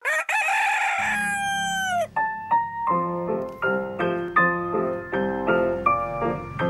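A rooster crows once, a long call that drops in pitch at its end, as a keyboard tune's bass line starts under it. From about two seconds in, a keyboard melody of short notes plays over the bass.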